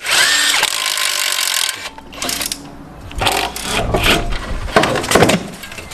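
Workshop tools at work taking a car's front strut assembly off: a loud hissing, whirring burst of nearly two seconds, then a series of knocks and scraping of metal parts.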